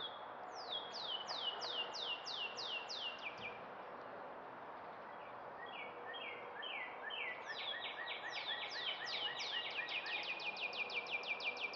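Songbird song: a series of about eight whistled notes, each sliding down in pitch, then after a short gap a second run of notes that speeds up into a fast trill near the end, over a faint steady outdoor hiss.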